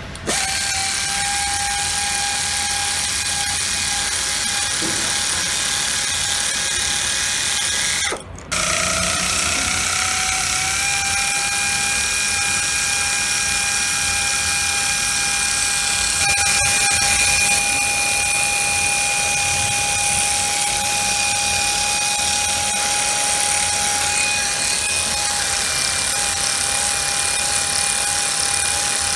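Handheld pneumatic ratchet driving a hex bit into the bolts of a gearbox housing, running with a steady high whine. It cuts out briefly about eight seconds in, then spins back up, its pitch rising before it settles.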